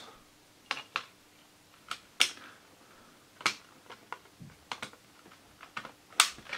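Plastic CD jewel case being reassembled: about ten sharp plastic clicks and snaps, spaced irregularly, the loudest about two seconds in and again near the end.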